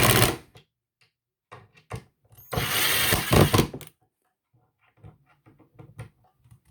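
Cordless impact driver running in short bursts as it drives screws into a cabinet door hinge: one burst cutting off just after the start, then another of about a second and a half, with small clicks of handling between.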